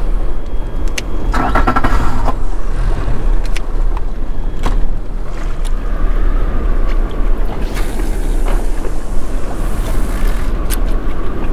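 Small boat's outboard motor running steadily, with water and wind noise over it and a brief rattle about a second and a half in.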